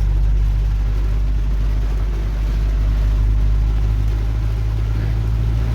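Inside the cab of a moving Hyundai HR light truck: the diesel engine and road noise make a steady low drone, with the even hiss of heavy rain on top.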